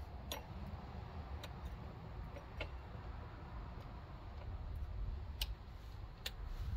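A few scattered light clicks and taps as chainsaw clutch parts are handled and refitted, over a low steady background hum.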